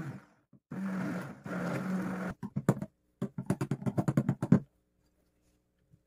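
Immersion blender blending a thick batter in a glass bowl: its motor runs with a steady hum for about a second and a half, then in rapid short bursts, about six a second, and stops a little past halfway.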